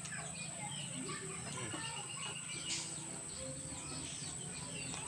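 Many short bird chirps and calls overlapping, with a steady high whine and a low hum underneath.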